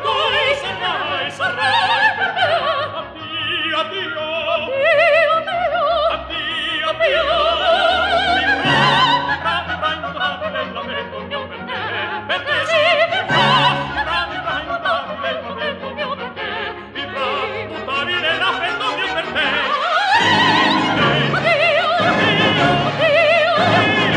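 Operatic singing with orchestral accompaniment, the voice held on long wavering notes.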